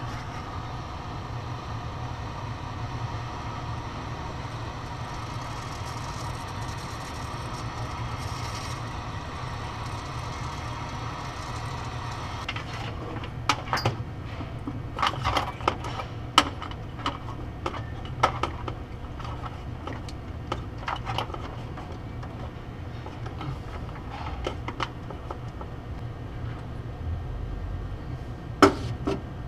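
Hand-held heat gun running steadily for about twelve seconds, shrinking heat-shrink tubing over wire terminals. It then stops, and a string of sharp clicks and taps follows as terminals and wires are worked at the relay with a hand tool.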